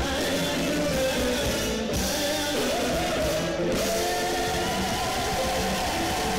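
Live Zimbabwean guitar-band music: electric guitar, bass and drums playing together, with a lead voice coming in about two and a half seconds in and singing long, wavering held notes over the band.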